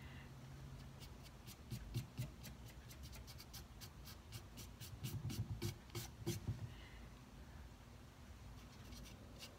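Fingers smearing paint across the painted wooden drawer front of a nightstand: faint rubbing and swiping with scattered small clicks, fullest around the middle.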